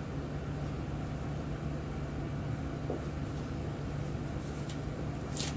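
Steady low machine hum of room equipment, with a few faint handling sounds from gloved hands and a sharper brief rustle near the end.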